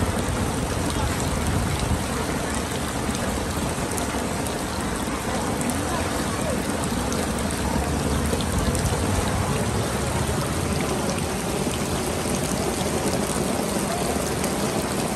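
Heavy rain falling steadily onto a flooded street: a constant hiss of drops hitting the standing water.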